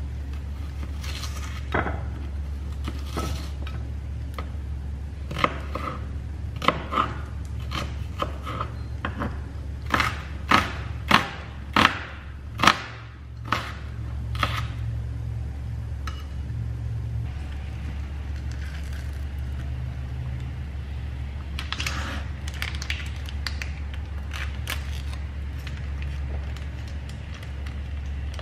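A chef's knife chopping onion on a wooden cutting board: a run of sharp chops, loudest about ten to thirteen seconds in. Later come lighter clinks and scraping of a spoon against a ceramic bowl, all over a steady low hum.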